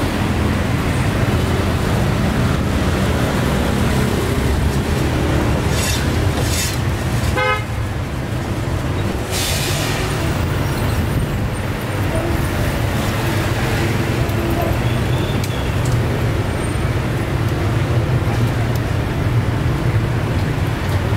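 Steady street traffic rumble of passing motor vehicles, with a short vehicle horn toot about seven seconds in.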